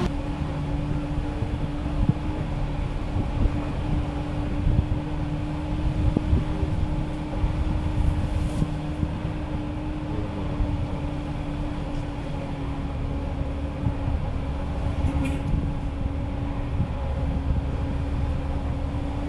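Loaded truck's engine running steadily at low road speed, with a low rumble of the drive and road, heard from riding on top of the cab. Two brief faint hisses stand out partway through.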